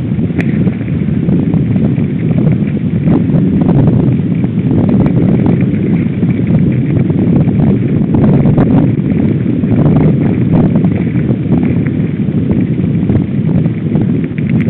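Downhill mountain bike descending a rough dirt trail at speed: loud wind buffeting on the microphone over the rumble of tyres on dirt and stones, with frequent knocks and rattles as the bike hits bumps.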